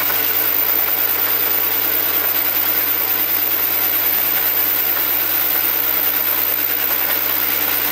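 Small metal lathe running steadily with a constant motor and spindle hum, as a parting tool cuts into a spinning stainless steel bar.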